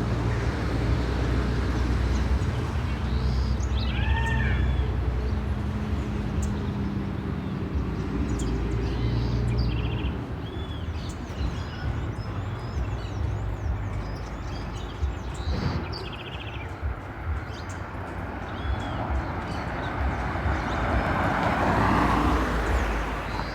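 Outdoor street ambience: a steady low rumble of vehicle engines, with small birds chirping in short bursts a dozen or so times. A broad swell of noise near the end sounds like a vehicle passing.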